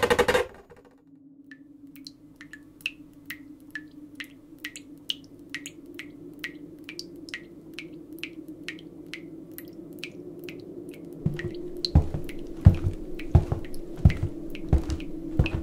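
Water dripping steadily, about three drops a second, over a low steady hum, after a brief loud rush of noise at the very start. From about eleven seconds in, irregular heavy low thumps join the drips.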